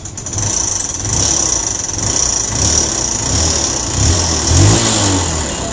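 Honda CB Trigger motorcycle's single-cylinder engine running and revved, rising in pitch about four and a half seconds in, making a noise called a very bad sound from the engine. The mechanic says it could be a piston pin seized in the connecting rod.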